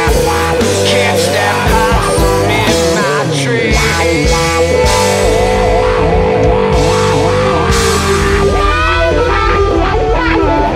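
Electric blues band playing an instrumental passage: a lead electric guitar with bent notes over a steady bass line.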